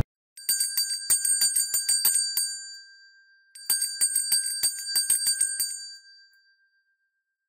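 Small brass hand bell shaken by hand, its clapper striking rapidly in two bouts of about two seconds each, with a bright ringing tone that dies away after each bout.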